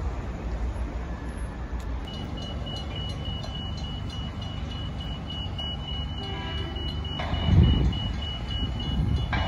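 Railway level crossing warning bell starting about two seconds in: a rapid, evenly repeated high electronic beeping as the crossing activates for an approaching train. Under it runs a steady low traffic rumble, with a brief louder low rumble about three-quarters of the way through.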